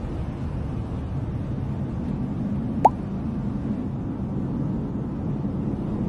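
A steady low rumble, with a single short upward-sweeping plop about three seconds in.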